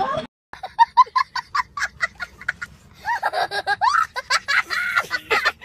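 A young child laughing hard: quick high-pitched bursts of about five a second, then from about halfway through longer, swooping squeals of laughter.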